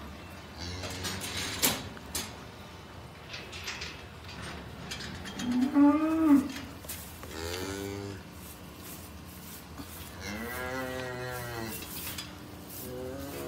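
A young calf bawling four times, the third call held about two seconds, while a colostrum feeding tube is down its throat. A few sharp knocks and rattles come about a second in.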